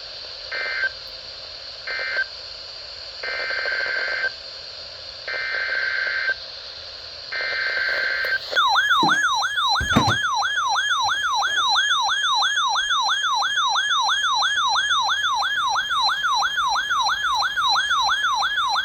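Emergency Alert System digital data bursts over a steady high whine: two short end-of-message bursts, then three one-second header bursts of warbling data tone for the next alert. About eight and a half seconds in, a loud attention tone begins, sweeping up and down about three times a second, with a thump soon after it starts, and it cuts off suddenly.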